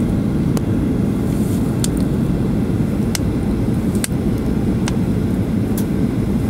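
Steady low roar inside a jet airliner's cabin as it descends to land: engine and airflow noise, with a few faint clicks.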